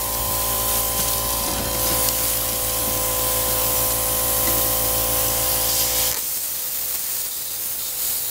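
MIG welding arc running steadily, a continuous crackling hiss as the wire-feed gun lays a bead on the trike's seat bracket.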